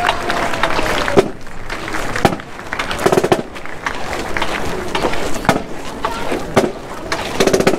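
Marching band drumline tapping out a sparse cadence between songs: sharp stick clicks about once a second, with short rattling figures of fast strikes a few times.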